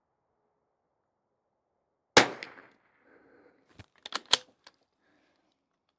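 A single .22 rimfire shot from a Bergara B-14R bolt-action rifle about two seconds in. A few sharp metallic clicks follow a second or two later as the bolt is worked.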